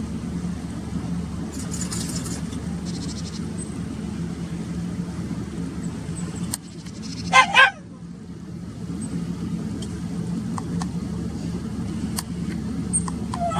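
A car engine idles with a steady low hum. Faint high twittering from Japanese tits comes about two seconds in, and a larger bird gives two loud calls in quick succession about halfway through.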